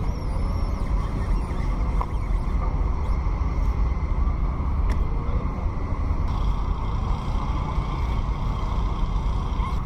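Steady low wind rumble buffeting the microphone while riding a bicycle, with a hiss of motion noise above it.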